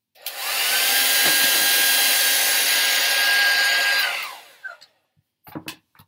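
Handheld hairdryer switched on, running steadily with a faint whine for about four seconds, then switched off as it blows a small stick house apart. A few faint clicks follow near the end.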